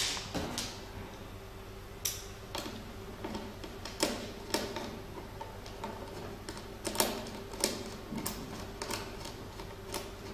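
Irregular light clicks and ticks of a screwdriver working a hanger screw into the side of a plastic-cased machine, with a faint steady hum underneath.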